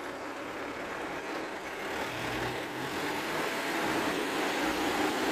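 Dump truck engine running and revving up steadily louder as it powers the hydraulic hoist raising the tipper bed to dump its load of soil.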